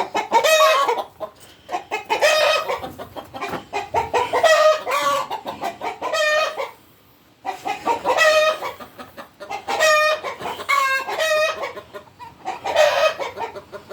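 Chickens cackling loudly and repeatedly, call after call, with a brief break about seven seconds in: the flock's alarm calls after a hawk swooped down and spooked it.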